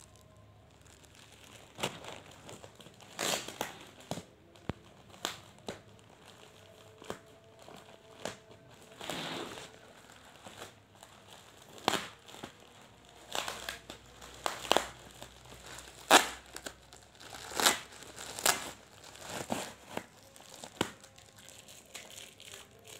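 A grey plastic courier mailer bag and its clear plastic wrapping are being torn open and crumpled by hand. The rustling is irregular, broken by sharp crackles.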